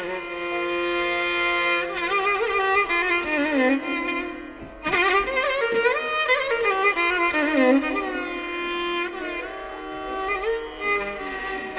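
Background music: a violin melody in Carnatic style, its notes sliding and bending, with a short dip in loudness about four and a half seconds in.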